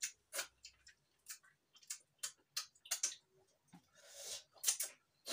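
Eating by hand from stainless steel plates: irregular short clicks and smacks of fingers, plate and mouth, with one longer noisy sound a little after four seconds in.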